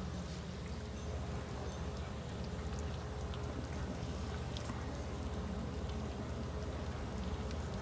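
Water boiling steadily in a large covered cooking pot, a low rumble with faint scattered pops and ticks.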